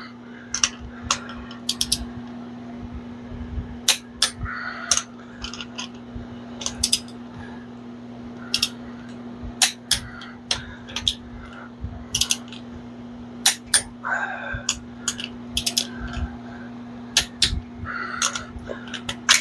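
Torque wrench working the connecting-rod nuts of a small-block Chevy, being torqued to 45 lb-ft: scattered sharp metallic clicks and short ratcheting rasps, over a steady low hum.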